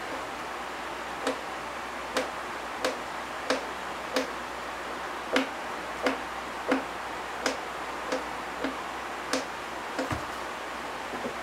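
Cat's tail slapping a hardwood floor in a series of sharp taps, roughly one every two-thirds of a second with some unevenness, and a dull thump about ten seconds in as the other cat pounces.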